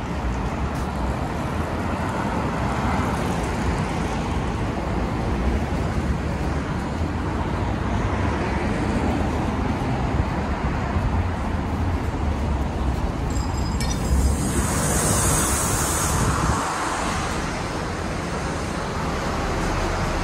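Road traffic running steadily past a city bus stop. Roughly two-thirds of the way in, a brief high tone sounds, then a loud hiss of compressed air lasting about two seconds comes from the arriving city bus's pneumatic system.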